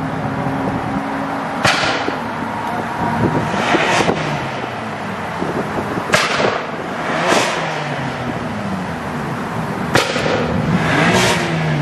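A BMW's engine being revved over and over while rolling slowly, each rev ending in a burst of loud exhaust pops and crackles, about six bursts in all.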